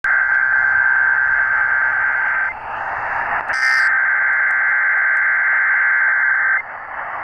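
Emergency Alert System SAME header data: two long bursts of the harsh, buzzy two-tone digital screech that opens an alert, with radio hiss between them and a brief crackle of static just before the second burst.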